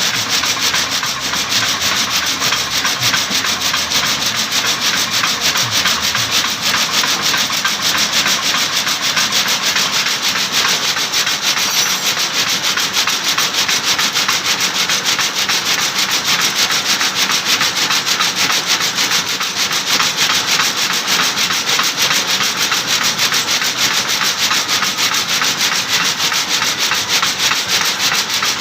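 Satay skewer and chopstick polishing machine running, the sticks rubbing and rasping against each other in a steady, dense rustle of many tiny rapid clicks.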